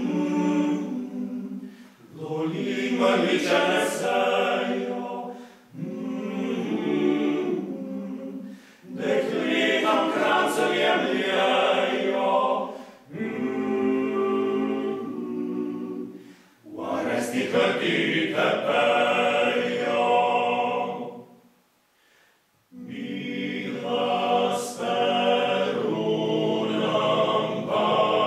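Male vocal octet singing a cappella in several parts. The singing comes in phrases of a few seconds, each broken off by a short breath, with a longer pause of about a second roughly three-quarters of the way through.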